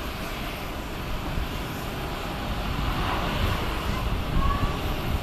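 Boeing 737-800's CFM56-7B jet engines running as the airliner taxis, a steady rumble with hiss.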